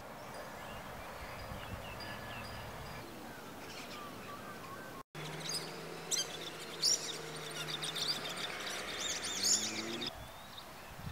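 Outdoor ambience of small birds chirping and calling, with many short quick notes that grow busier after a brief dropout about halfway. A low steady hum runs under the second half.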